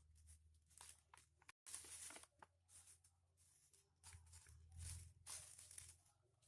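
Faint rustling and crinkling of foil-covered paper being folded and creased by hand, in irregular short strokes, with a brief full dropout about one and a half seconds in.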